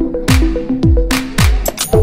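Background electronic dance music with a steady kick drum about twice a second, crisp hi-hat strokes between the beats and a stepping synth bass line.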